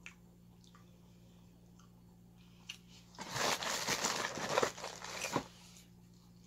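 Crunchy snacks being handled and eaten: a loud crackling, crunching burst lasting about two seconds in the middle, over a low steady hum.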